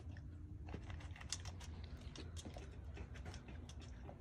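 Rottweiler puppy eating dry kibble from a stainless steel bowl: irregular small crunches and clicks of kibble and teeth against the metal, over a low steady hum.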